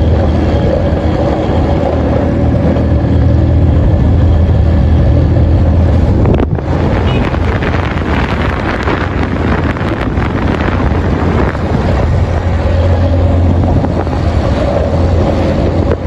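Steady engine hum and road noise of a moving vehicle, with wind buffeting the microphone; the sound dips briefly about six and a half seconds in.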